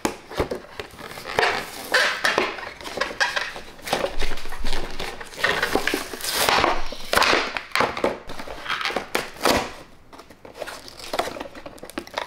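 Plastic blister pack and cardboard backing of a toy monster truck crinkling and crackling as hands pry and tear it open, in irregular bursts.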